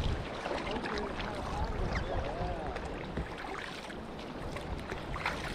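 Water splashing and rushing along a sailing kayak's hull through waves, with a few sharper splashes and wind buffeting the microphone.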